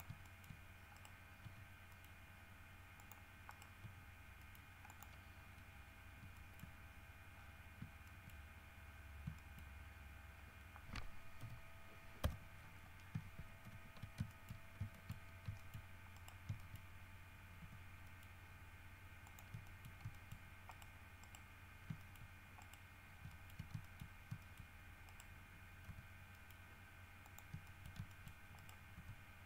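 Faint, scattered clicks of a computer keyboard and mouse, heard over a low steady hum with a few faint steady whines. The sharpest click comes about twelve seconds in.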